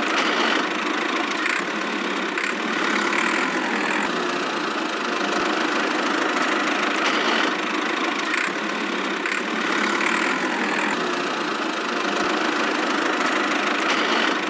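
Small engine running steadily at one speed, an even mechanical drone with no revving.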